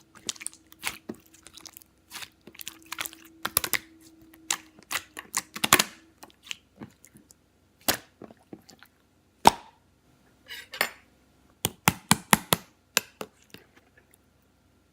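Close-up irregular crunching and clicking, in clusters with short gaps, stopping about a second before the end.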